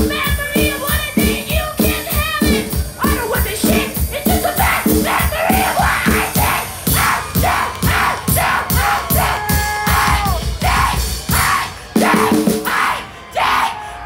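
Punk rock band playing live through a PA, heard from the crowd: a fast steady drum beat, guitars and a woman singing. Near the end the music breaks up into short stabs as the song finishes.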